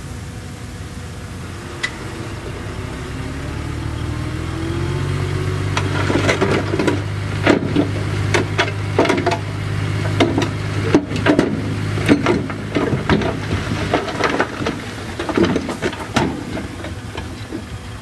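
Caterpillar D6D bulldozer's diesel engine speeding up and then pulling steadily under load, with repeated clanks and knocks of the tracks and blade working through dirt and rock from about six seconds in.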